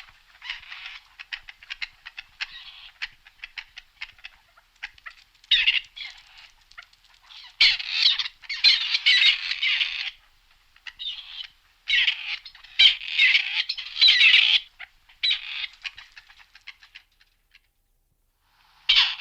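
Grey partridge calling: a run of short clicking notes, then harsh, rasping calls in bursts of one to two seconds, dying away near the end.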